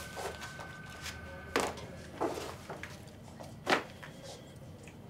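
Handling noises at a wooden office desk: a few short knocks and rustles as paper folders and the desk are touched, the loudest knock about two-thirds of the way through.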